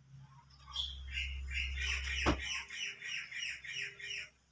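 A rapid series of about ten short, high-pitched animal calls, roughly three a second, with a single sharp knock about halfway through.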